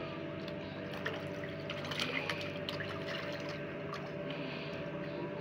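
Sea water splashing and lapping against the side of a boat, with a cluster of small splashes about two seconds in, over the steady hum of an idling boat engine.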